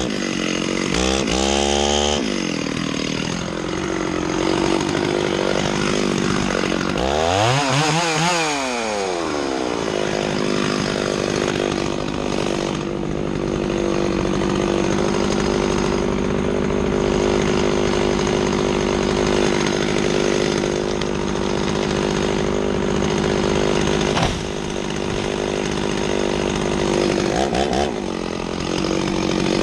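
Gas chainsaw revving up and down a few times, then held at steady full throttle as it cuts through a red oak trunk. The engine note dips briefly about three-quarters of the way through.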